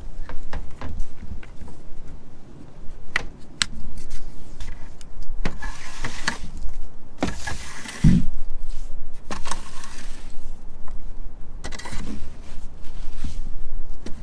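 Leaves and debris being cleared out of a gutter by hand: scattered sharp knocks and clicks against the gutter, with several stretches of scraping and rustling.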